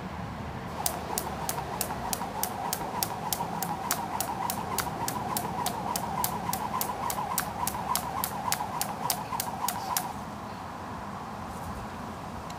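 Skipping rope slapping on a tarmac path, a quick even run of sharp slaps about three a second over a steady whir, stopping about ten seconds in.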